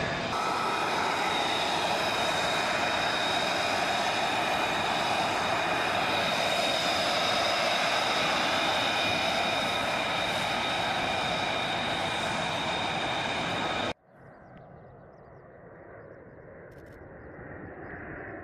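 F-35B Lightning II's F135 turbofan running at taxi: a loud, steady jet whine with several high tones held over a broad rush. About 14 seconds in it cuts off suddenly, giving way to fainter jet noise that grows steadily louder as a formation of F-35Bs approaches overhead.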